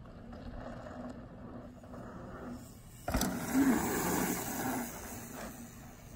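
Faint outdoor noise, then a sharp click about three seconds in, followed by a mountain bike rolling past close by on a dirt track, its knobby tyres running over the packed dirt, loudest for about two seconds before fading.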